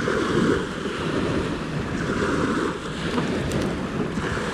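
Steady wind noise on the microphone mixed with waves washing on the shore, with a few faint clicks about three and a half seconds in.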